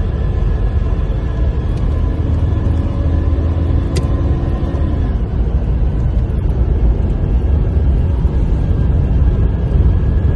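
Tuned car's engine running with a steady deep rumble, with one sharp click about four seconds in.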